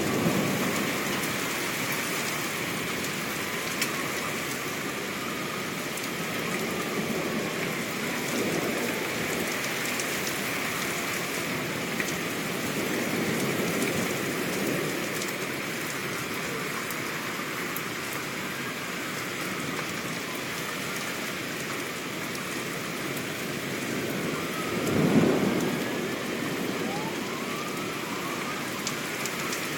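Steady rain falling hard, with a rumble of thunder swelling about three-quarters of the way through. Distant sirens rise and fall faintly underneath.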